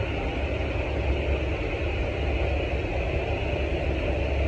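Steady low rumble with an even hiss of air, machinery noise heard inside the enclosed cargo hold of a Boeing 787-9.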